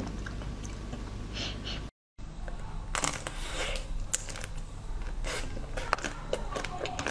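Close-up eating sounds of frozen desserts. Soft chewing gives way, after a brief dropout about two seconds in, to crisp, repeated cracking and crunching as the frozen chocolate shell of an ice cream bar is bitten.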